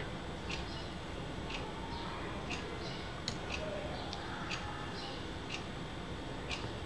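Faint, sharp ticks at an even rate of about one a second over a steady background hiss, with a few soft handling sounds of small phone parts.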